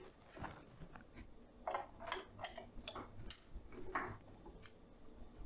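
Faint, irregular clicks and knocks of a device mount being handled and fastened onto the end of a floor-stand arm with a T-handle key.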